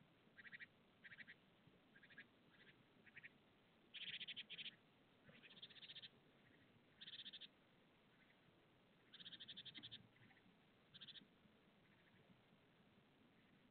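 A series of short, rasping animal calls, each a quick run of pulses, coming in irregular bursts with faint quiet between them.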